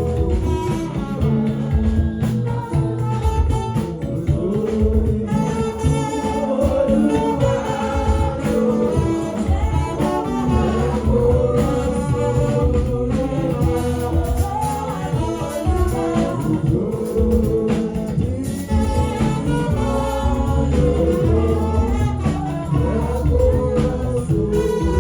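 Gospel music with singing over live instruments and a steady beat.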